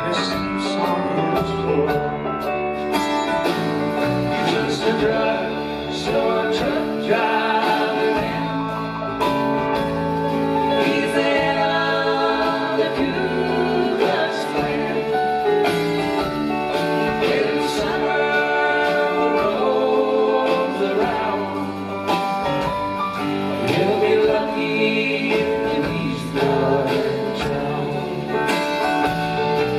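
Live country-rock band playing: acoustic and electric guitars, drums and keyboard, with singing.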